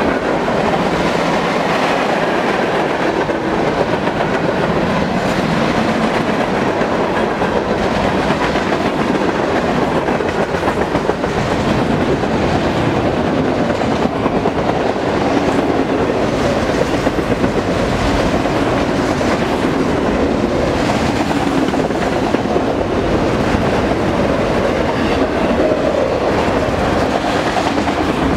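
Freight train cars rolling past at speed: a steady, loud rumble and rattle of steel wheels with a clickety-clack over the rail joints, as boxcars, covered hoppers and autoracks go by.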